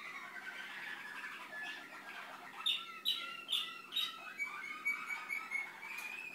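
Malinois (Waterslager) song canary singing a continuous song. It opens with varied warbled notes, four loud repeated notes come about halfway through, and a fast, even trill of short high notes fills the last two seconds.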